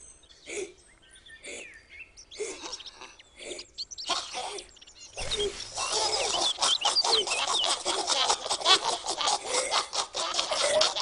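High-pitched, squeaky cartoon-creature voices. First come scattered short squeals, then about halfway through a dense chorus of many overlapping squeaky cheers.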